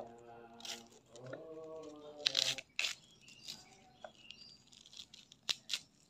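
Napa cabbage leaves being cut and snapped apart by hand with a knife: crisp cracks and crunches, the sharpest about two and a half, three and five and a half seconds in. A held, high pitched whine sounds twice over the first three seconds.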